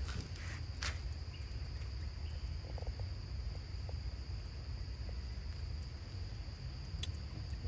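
Steady high-pitched insect drone over a low rumble, with a few faint clicks.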